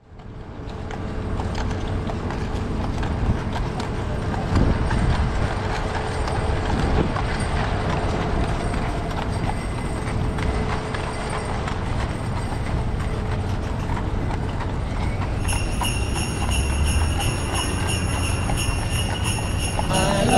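Carriage horses' hooves clip-clopping on the street over a steady city street hum. About fifteen seconds in, a high steady ringing of bells joins in.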